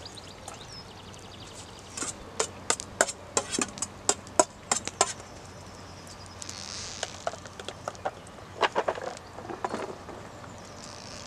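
Irregular knocks and clinks of cookware being handled at a campfire, then a cluster of small patters as chopped onion is tipped from a plastic tub into a steel pot of melting butter, with brief hisses between.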